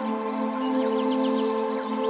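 Ambient background music: sustained drone chords with a short, high pulse repeating about three times a second.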